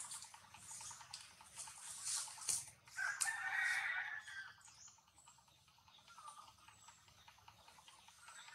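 A rooster crows once, about three seconds in, lasting a little over a second, over a faint high-pitched rasping and ticking background.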